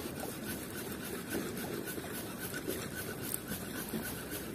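Abu Garcia C3 baitcasting reel being cranked steadily: a faint gear whirr with a light regular tick about four times a second as braided line winds onto the spool. The reel is working under load from a heavy bigbait pulling hard on the retrieve.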